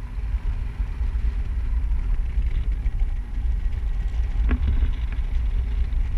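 Wind buffeting the microphone of a camera flying on a paraglider: a steady low rumble, with a short click about four and a half seconds in.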